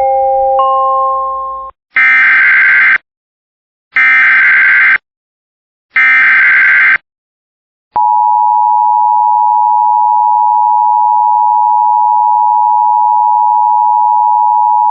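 Emergency Alert System tones for a tornado warning. A rising three-note chime dies away, then three one-second bursts of SAME digital header data sound about a second apart: the alert's header, sent three times. From about eight seconds in, the steady two-tone EAS attention signal (853 and 960 Hz) sounds.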